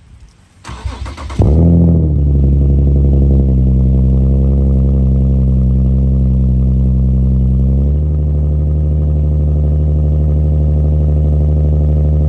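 Car engine starting: a brief crank, then it catches with a quick rev flare and settles into a steady idle. The idle steps down slightly about eight seconds in.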